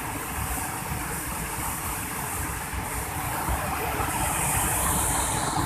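Muddy mountain river pouring over a broad weir-like ledge of a waterfall: a steady, very noisy rushing of water, its hiss growing brighter about four seconds in.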